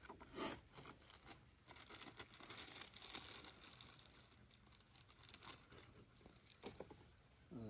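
Faint rustling and crinkling of paper and packaging being handled, with a few small irregular clicks.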